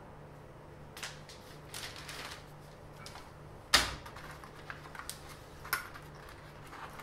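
A flexible ruler handled and pressed down onto a paper sheet on a workbench: scattered light taps, clicks and paper rustles, with one sharp knock a little under four seconds in.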